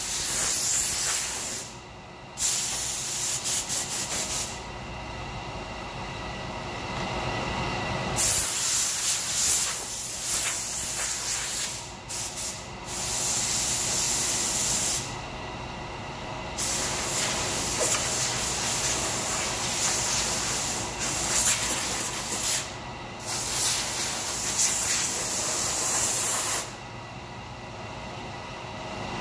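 Compressed-air blow gun hissing in about five long blasts, with a few quick trigger taps near the fourth second, blowing sanding dust off the wood. A steady machine hum runs underneath between blasts.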